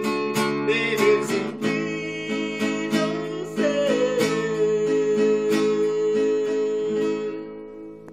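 Acoustic guitar strummed in a steady rhythm of about two strums a second, with a man's voice holding a long sung note over it. Near the end the strumming stops and the last chord fades out.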